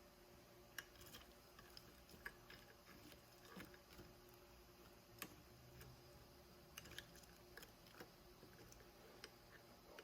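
Near silence: room tone with faint light clicks and taps scattered at uneven intervals, about a dozen in all.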